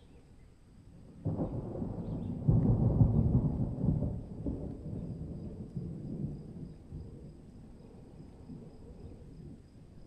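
A roll of thunder: a sudden crack about a second in, swelling a second later, then a low rumble that fades away over several seconds.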